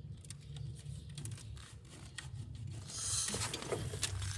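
Light handling noises: scattered small clicks and rustling over a faint low hum, growing louder about three seconds in.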